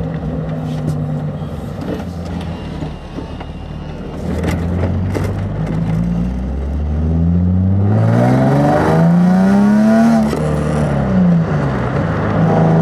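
Nissan 350Z's 3.5-litre V6 heard from inside the cabin: it runs steadily, then pulls away with the revs climbing strongly from about four seconds in. Around ten seconds in the revs fall back quickly, then hold steady near the end. The driver is listening for the new tires rubbing the wheel wells under the car's squat, and no rub is heard.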